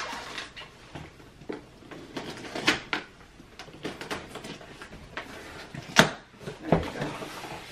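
Scissors cutting and scraping along the top of a cardboard iMac shipping box, with cardboard rustling and creaking in short scattered clicks. A sharp snap about six seconds in as the box is pulled open.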